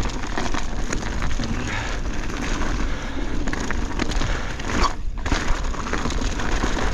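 2024 Pivot Switchblade full-suspension mountain bike riding hard down a rocky trail: tyres crunching over dirt and rock, with drivetrain and suspension clatter and wind rumbling on a chest-mounted camera's microphone. A brief lull comes about five seconds in.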